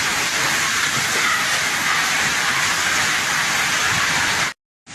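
Steady, loud rushing of storm water, heavy rain and runoff in a tropical storm. It cuts off abruptly near the end.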